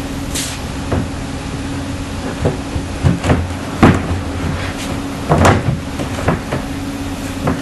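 Plywood crate side panel being set into place against the base and end panels: a series of wooden knocks and bumps, the loudest a little under four seconds in and about five and a half seconds in.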